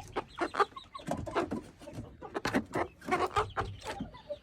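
Roosting chickens clucking and squawking in quick short calls, restless and squabbling as they settle for the night.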